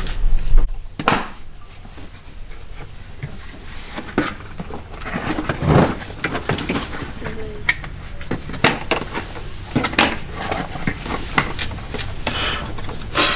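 Irregular knocks, clicks and scrapes of hands and tools working on an old car, with louder knocks just after the start and near six seconds.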